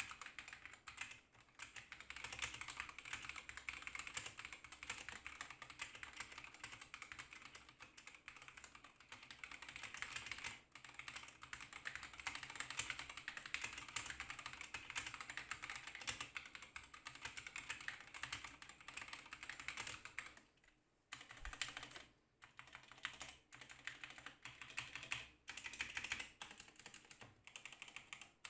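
Fast, continuous typing on a mechanical keyboard with linear Gateron switches, a dense clatter of keystrokes with a couple of short pauses about two-thirds of the way through.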